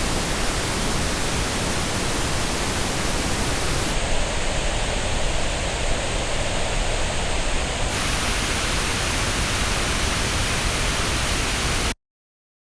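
Pink-noise test signal at a steady level, played through earbuds and recorded on an artificial ear simulator. Its tone shifts audibly about four seconds in and again about eight seconds in as the playback changes, and it cuts off suddenly about twelve seconds in.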